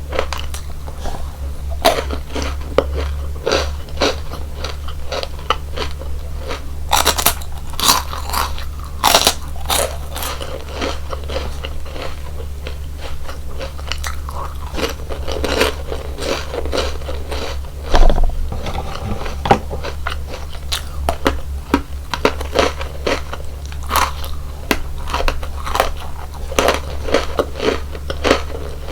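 Close-miked crunching and chewing of crisp chocolate snacks and biscuits, with sharp crunches coming irregularly, several every second.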